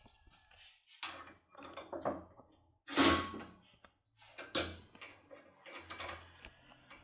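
Small locksmith tools being handled: a series of short scrapes and clicks, about five in all, the loudest about three seconds in.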